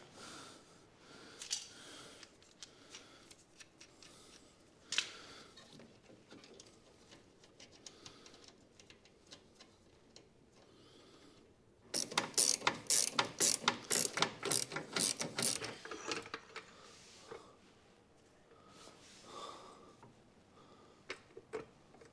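Hand ratchet wrench clicking as a nut is run down on a suspension bolt: a louder run of sharp ratchet clicks for about four seconds in the middle, with fainter clicks and tool knocks before and after.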